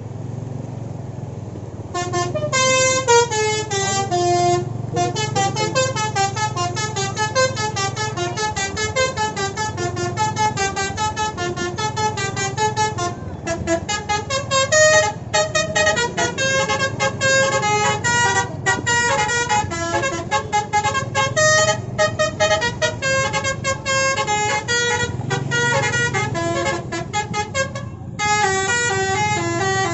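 A bus's Basuri telolet horn, a multi-tone air horn, playing fast melodies of stepped notes from about two seconds in, with a few short breaks. A low engine hum runs underneath.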